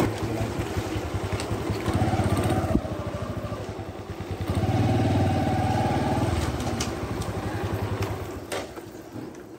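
Bajaj Platina motorcycle's single-cylinder four-stroke engine running under way. The revs rise twice, about two seconds in and again around five seconds, then fall off toward idle near the end.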